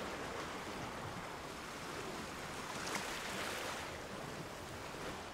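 Steady outdoor ambient noise: an even rushing hiss with no distinct events.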